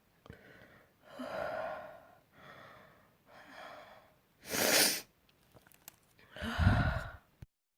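A person's sneeze build-up: three catching, voiced in-breaths, then a sharp, loud sneeze about halfway through, followed near the end by a second loud, voiced burst that cuts off abruptly.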